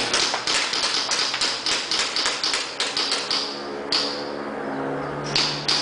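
Pistols, most likely airsoft guns, firing in quick succession: a rapid string of sharp clicking pops that slows after about three seconds, with a single shot about four seconds in and a fresh burst near the end.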